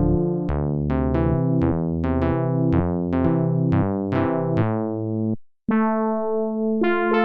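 MES Mini 7 synthesizer playing a preset: a run of notes, two to three a second, each bright at the start and quickly dulling. The run breaks off about five seconds in, and after a brief gap a different patch comes in as a held chord, which changes near the end.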